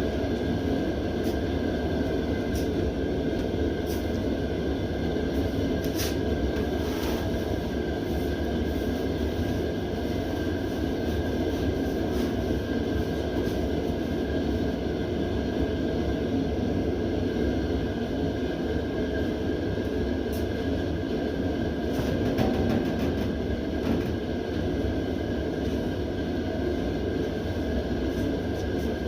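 Mr. Heater propane heater running on high: a steady rushing burner noise with a faint steady high tone, and a few faint ticks.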